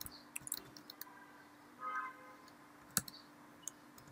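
Computer keyboard keystrokes: a few quick clicks near the start and a single sharper click about three seconds in, with a short faint tone about two seconds in.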